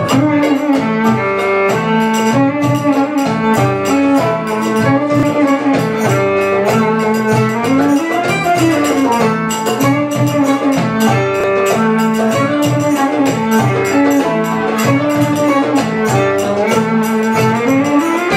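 Live belly dance music from a small band: a violin plays a melody with sliding notes over plucked strings and a steady beat.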